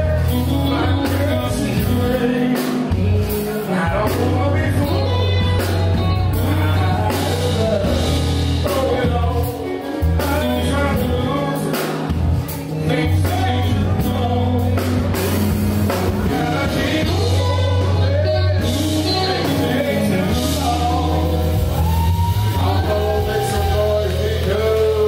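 Live band music: a male singer over a heavy bass line and drums with cymbals.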